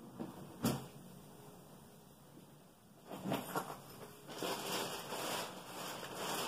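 Handling noises while plugging in a feeding pump's power cord: a sharp click about half a second in, a few knocks around three seconds in, then rustling near the end.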